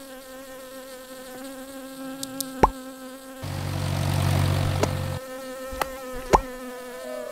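Cartoon bee buzzing steadily, with a louder, rougher buzz for a couple of seconds in the middle. A few sharp pops land about 2.5, 5 and 6 seconds in.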